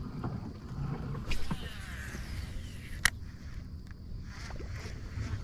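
Casting and retrieving with a spinning rod from a kayak: low rumbling handling noise from the rod and reel, with a short brighter rustle about a second and a half in and one sharp click about three seconds in.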